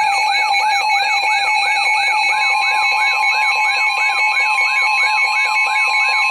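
Weather radio alert alarms sounding together: a warbling siren tone rises and falls about three times a second over steady, pulsing electronic beep tones. A further steady tone joins about two seconds in.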